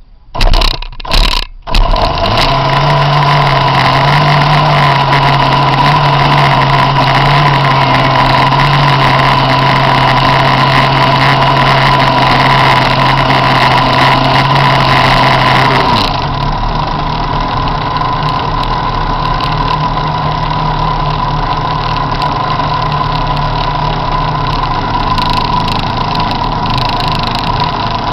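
Zenoah two-stroke petrol engine of an RC jet boat, heard close up from an onboard camera. It gives a few loud bursts in the first two seconds as it starts, then runs steadily at idle. About halfway through the sound turns somewhat quieter and duller and keeps running steady.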